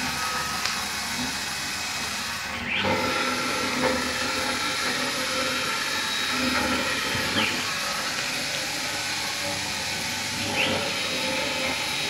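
A 6090 CNC router's 3 A stepper motors driving the axes on 1605 ball screws in a high-speed test run: a steady hissing whir with a few short rising whines. It is running smoothly, without lost steps.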